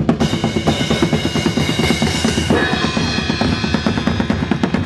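Live band music driven by fast, steady drumming, with high held tones over the first half.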